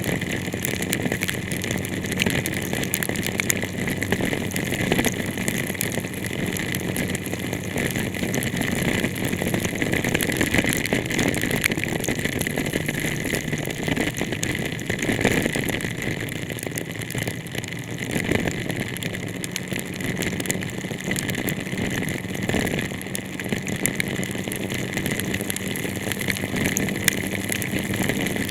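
Heavy rain falling steadily on a car, a dense patter of drops over the steady hum of the vehicle's engine.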